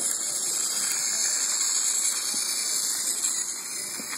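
Battery-powered TrackMaster James toy engine running close past the microphone: a steady whirring hiss from its small electric motor and wheels on the plastic track, loudest in the middle and easing a little near the end.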